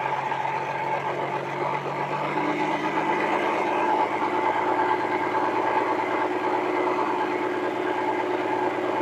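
Forklift engine running under load, its revs rising about two and a half seconds in and then holding steady, with a steady whine over it.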